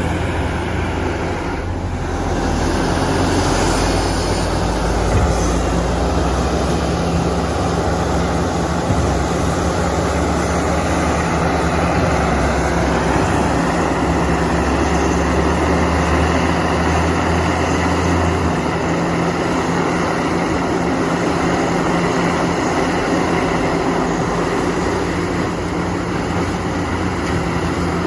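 A JCB excavator's diesel engine runs steadily while the machine works. Its low drone eases off about two-thirds of the way through.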